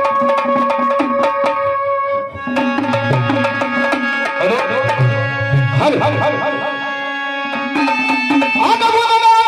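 Tabla playing a lively rhythm of sharp strokes and deep bass-drum tones, over an instrument holding sustained notes.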